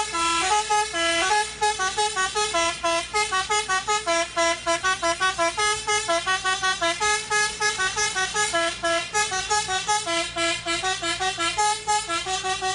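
Indonesian bus 'basuri' melody horn playing a fast tune of short stepped notes, several a second, without a break.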